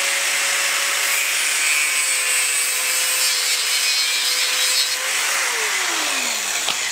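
Small electric power tool cutting, its motor running at a steady pitch with a harsh cutting noise, then winding down in pitch about five seconds in as it is released, with a click near the end.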